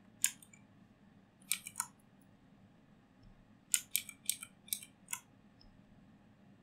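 Stylus tapping and scratching on a pen tablet as a word is handwritten: one sharp tick just after the start, three quick ones about a second and a half in, and a run of about five around four to five seconds in.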